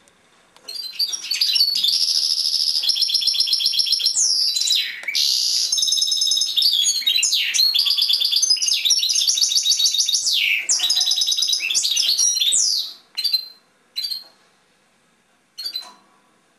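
European goldfinch singing: one long unbroken song of fast trills and sweeping whistled glides lasting about twelve seconds, followed by a few short single notes near the end.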